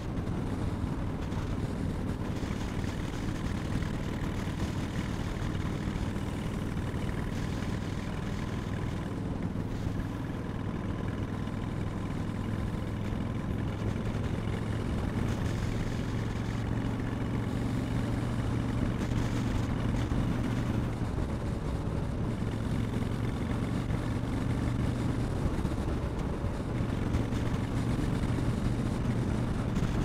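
2008 Honda Shadow 750 Aero's V-twin engine and exhaust running steadily while the motorcycle cruises, heard from the rider's seat.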